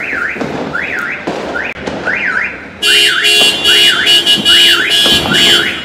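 A car alarm siren whooping, its pitch sweeping up and down about once every 0.7 seconds. About three seconds in, a loud steady blaring tone joins it and becomes the loudest sound.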